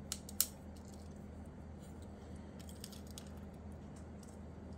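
Glass nippers nipping a small strip of glass cutoff: a sharp snip about half a second in, then a few faint small clicks near the middle, over a steady low hum.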